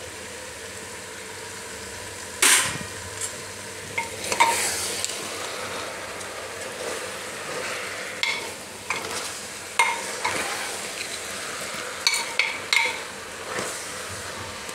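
Jackfruit and spices frying with a steady sizzle in an open aluminium pressure cooker, while a metal spoon stirs them, scraping and knocking against the pot at irregular moments from about two and a half seconds in.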